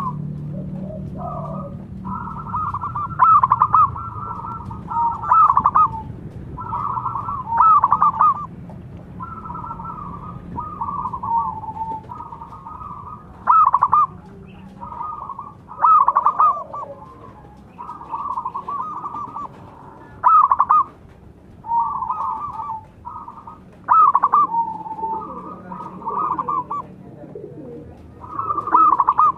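Zebra doves cooing: repeated phrases of quick, rolling coo notes, one after another with short gaps.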